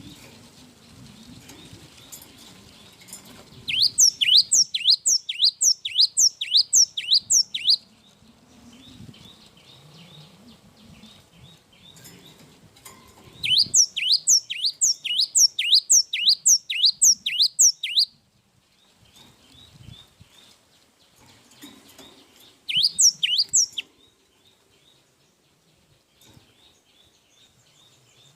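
A gelatik wingko singing: loud runs of quick, sharply falling whistled notes, about three a second, given in three bursts, the first two lasting about four seconds and the last about one, with soft chirps between them.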